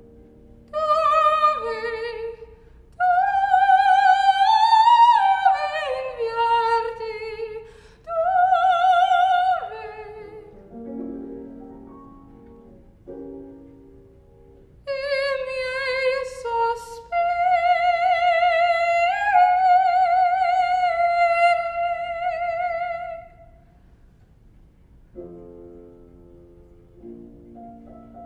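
Classical soprano singing an art song in long, high phrases with wide vibrato, accompanied by piano. The voice drops out twice, for a few seconds in the middle and again near the end, while the piano plays alone.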